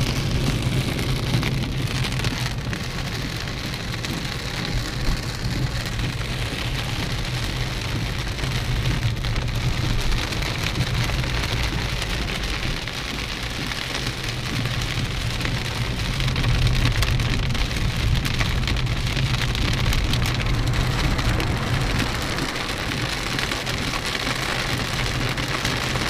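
Heavy rain drumming steadily on a car's roof and windscreen, heard from inside the cabin, over a continuous low drone of the car driving along a wet road.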